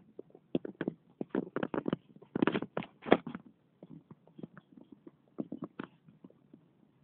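Irregular clicks, knocks and rubbing from a phone camera being handled and carried on the move, most dense about a second and a half in.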